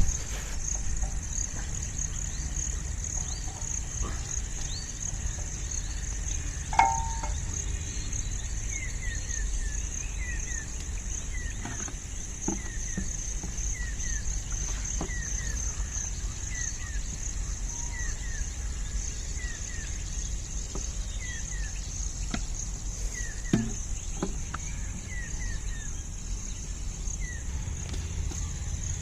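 Steady high-pitched trilling of insects, over a low rumble, with small falling chirps repeating in pairs. Two louder knocks stand out, about a quarter of the way in and again near the end.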